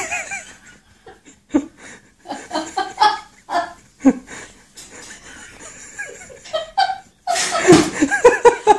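People laughing in repeated bursts of chuckles and giggles, building to louder, continuous laughter near the end.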